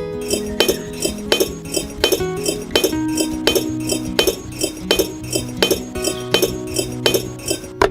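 Background music with an even clinking, bell-like beat of about three strikes a second over a steady bass line.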